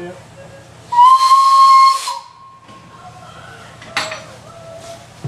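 Narrow-gauge steam locomotive whistle giving one steady blast of about a second with steam hissing through it, sounded as the right-away signal for departure. A shorter, fainter sharp sound follows about three seconds later.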